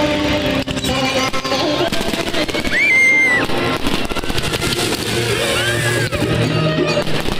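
Background music with a steady run of fireworks crackling and popping beneath it.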